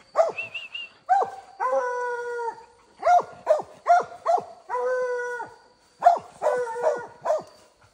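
Hunting hounds bawling at the foot of a tree with a bear up it: short chopped barks mixed with a couple of longer drawn-out bawls, the treed bark that tells the hunter the bear has climbed.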